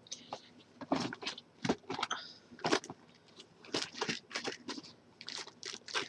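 A string of short, irregular metallic clicks and scrapes from a lock pick working the pin stack of a large old Corbin padlock.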